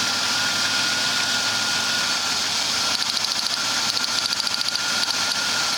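2001 Ford Taurus V6 idling with a steady high whine, and from about three seconds in a fast, even ticking of sparks as the cylinder-one ignition coil fires to a grounded test light. The spark jumps only a short gap, the sign of a weak coil behind the cylinder-one misfire.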